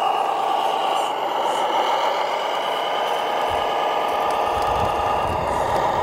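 Radio-controlled model truck running, its electric drive giving a steady high whine. A low rumble joins about three and a half seconds in.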